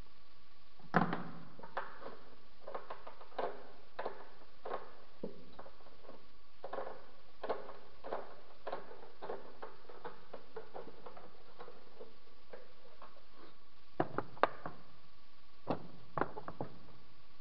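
Hand tool clicking on the valve cover bolts as they are tightened in a crisscross order, a short sharp click every half second to a second. A louder knock comes about a second in, and a few quick clicks come near the end.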